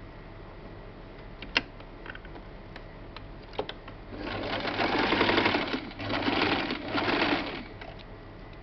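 Domestic electric sewing machine running to sew a short stitch across the end of a fabric tube holding elastic, in two brief runs with a short break between, starting about four seconds in. A few light clicks of handling the fabric come before it.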